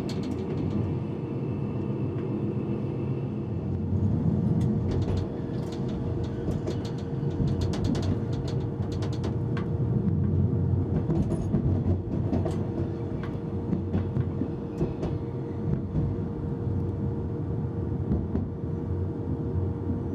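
Rhaetian Railway train running along the track: a steady low rumble with a constant hum, and scattered clicks and knocks from the wheels over the rails.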